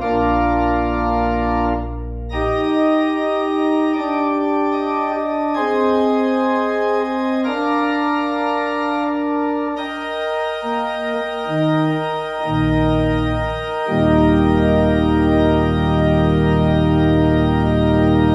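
Church organ playing slow sustained chords over a low pedal bass, moving through several chord changes and then holding a long, full final chord near the end.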